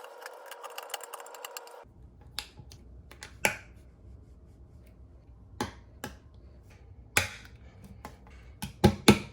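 Mechanical whirring with rapid clicking for about two seconds, then scattered sharp clicks and knocks of tools and hardware as the toilet tank is bolted to the bowl, bunching into a quick cluster near the end.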